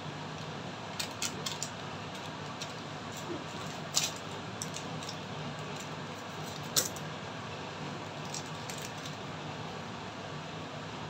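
Scattered sharp metallic clicks and taps of a cooking utensil against a frying pan of yakisoba noodles, over a steady low hiss. The loudest taps come about four seconds in and just before seven seconds.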